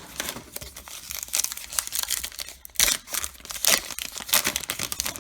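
Crinkling and tearing of a baseball card pack wrapper being opened by hand, in a run of crackly rustles with a few louder crunches.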